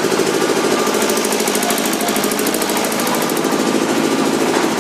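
Combined rotary slotter with die cutter for corrugated board running, a loud, steady, fast mechanical clatter from its rotating slotting heads and shafts.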